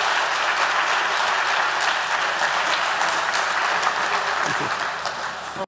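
Audience applauding: dense, steady clapping that eases a little near the end.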